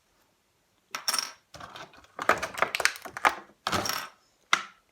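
Small hard plastic toy accessories clicking and clattering as they are handled and set down, in several quick clusters after about a second of quiet.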